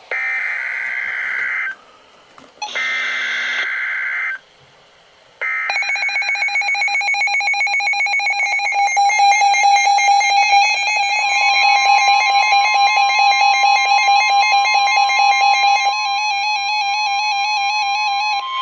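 NOAA Weather Radio emergency alert: three short screeching bursts of the SAME digital header, each under two seconds with gaps between. From the third burst a rapidly pulsing electronic alarm tone begins, and about halfway through the steady 1050 Hz attention tone joins it and holds, signalling a warning about to be read.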